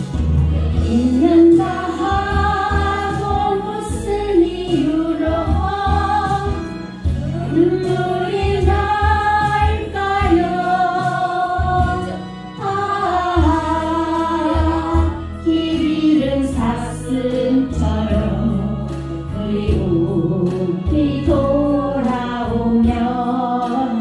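A class singing a Korean song in unison along with a karaoke backing track, the melody carried by many voices over a steady accompaniment.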